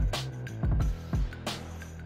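Background music with a heavy beat: deep, punchy kick drums, sharp snare-like hits and a held bass tone.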